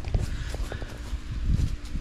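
An animal's low-pitched vocal sound, swelling about a second and a half in.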